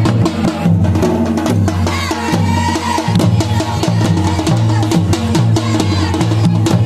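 Traditional dhol, a rope-tensioned double-headed barrel drum beaten with a wooden stick on one head and by hand on the other, played with a smaller stick-beaten drum in a fast, continuous processional rhythm. Deep booming strokes repeat under dense sharp strikes.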